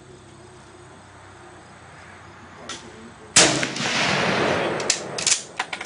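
A single Mosin-Nagant rifle shot about three and a half seconds in, with a long rumbling echo, followed by several sharp metallic clacks as the bolt is worked.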